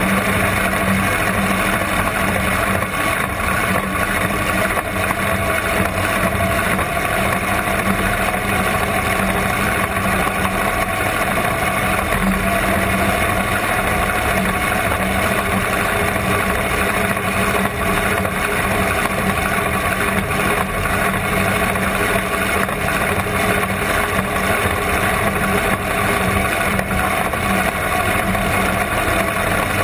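Supercharged, alcohol-burning big-block Chevrolet V8 of a rear-engine dragster idling steadily, heard from close up.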